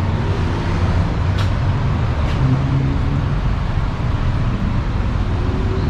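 A motor vehicle engine running steadily with a low, even rumble, with a couple of faint ticks.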